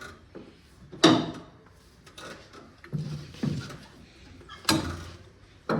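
Several sharp knocks and clunks while a John Deere 5050D tractor's steering wheel is being undone from its shaft. The loudest comes about a second in, and a few more are spread through the rest.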